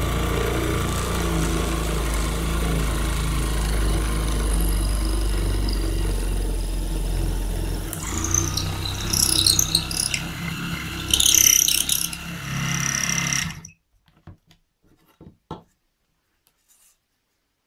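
DC motor of a belt-driven homemade drill press running steadily with its bit in wood. About 8 s in, loud high squealing and scraping begins as a screwdriver is pressed against the spinning chuck. The motor cuts off abruptly near the end, leaving a few faint clicks.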